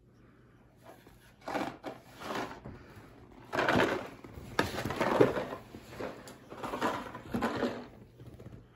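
A cardboard tissue box being nosed and picked up by a boxer dog, the cardboard rustling and scuffing in about five short bursts.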